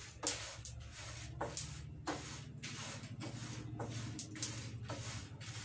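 A spatula or ladle stirring dry-roasting dals and spices in a kadai, making irregular scraping and clicking strokes about two to three a second, over a steady low hum.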